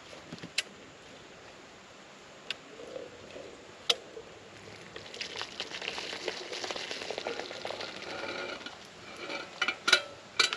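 Tannin-laden boiling water being poured off a pot of acorns, splashing for about four seconds, with a few sharp clinks before it and several louder knocks near the end.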